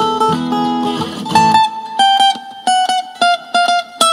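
Background music played on plucked string instruments. About a third of the way in the bass drops out, leaving a single high line of quickly repeated picked notes.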